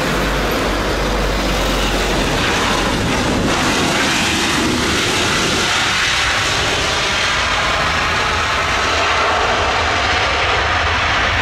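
Loud, steady jet noise from a landing Boeing 737-800, its CFM56-7B turbofan engines running as the airliner rolls out on the runway just after touchdown.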